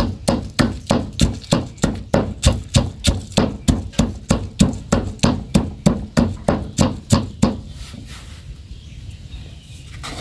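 Wooden pestle pounding dried red chillies and garlic in a stone mortar, in steady strikes about three a second. The pounding stops about seven and a half seconds in.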